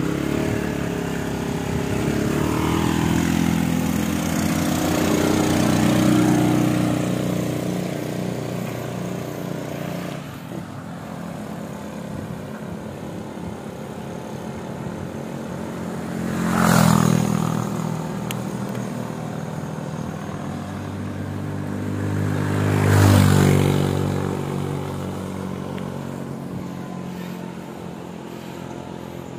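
Motorcycle engines running on the road close by. The engine sound swells early, then two vehicles pass loudly, about halfway through and again some six seconds later.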